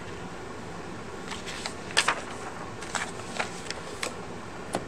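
Paper sheets being handled and turned over: a few short rustles and taps scattered over a steady background hiss.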